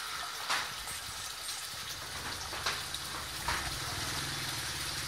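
An engine idling, a low steady hum that comes in about two seconds in, over a steady hiss, with a few sharp clicks.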